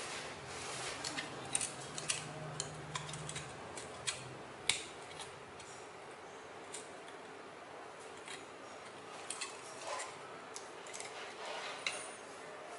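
Thin aluminium strips cut from a drink can clicking and crinkling as they are handled and bent into shape: irregular sharp ticks, busiest in the first five seconds and sparser after.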